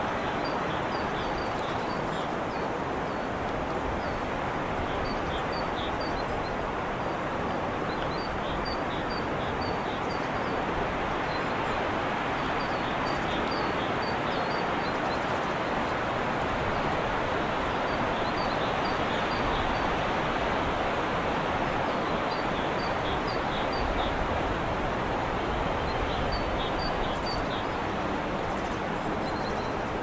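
Steady rushing outdoor background noise, with faint, high, short chirps that come in small clusters every few seconds.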